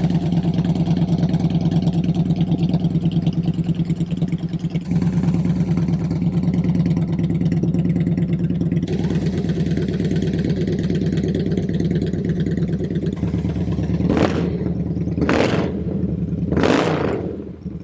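2017 Victory High-Ball's V-twin engine idling with a steady, even beat, then revved in three quick throttle blips near the end, each rising and dropping back to idle.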